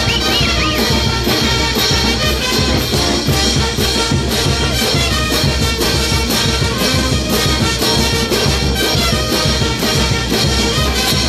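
Live brass band playing a dance tune with a steady beat: sousaphones, trumpets, trombones and saxophones over a bass drum.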